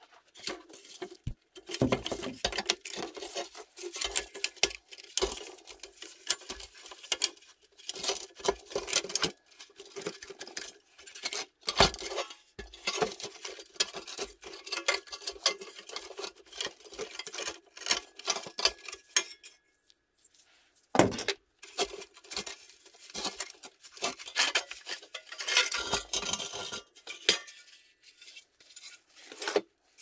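Metal parts of a rusty pressed-steel Tonka toy bulldozer clinking, knocking and scraping as they are handled and pried apart by hand during disassembly. It is a long run of irregular clicks and knocks, with a brief pause about two-thirds of the way through.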